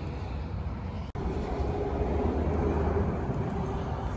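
Steady low rumble of outdoor background noise with a faint hum, broken by an abrupt cut about a second in.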